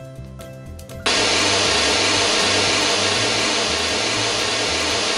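Steady hiss of test noise from a speaker during an Onkyo AccuEQ room calibration measurement, starting suddenly about a second in and holding even.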